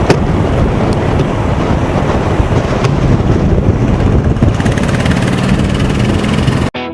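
Loud road and traffic noise with wind rumbling on the microphone, cut off suddenly near the end as guitar music starts.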